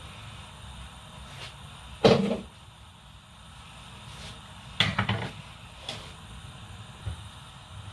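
Kitchen clatter: a loud knock about two seconds in, a cluster of knocks about five seconds in, then a few lighter ones, over a steady low background hum.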